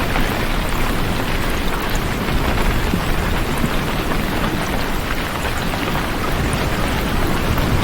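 Heavy rain falling steadily, a dense even hiss with a deep low rumble beneath it.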